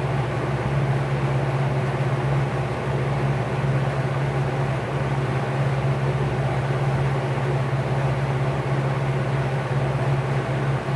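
Vintage Lakewood P-58 box fan motor running steadily with a 20-inch LAU 60263801 propeller: a steady low electric hum under an even rush of moving air.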